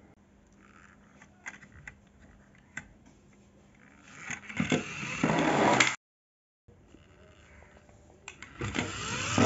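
Plastic toy cars whirring and rolling close to the microphone, with a few light plastic clicks. The whir rises to loud twice and is cut off abruptly the first time.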